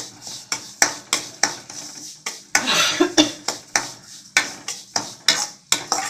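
Metal spoon stirring semolina roasting in ghee in a stainless steel kadai, knocking and scraping against the pan about three times a second, with one longer scrape a little before halfway.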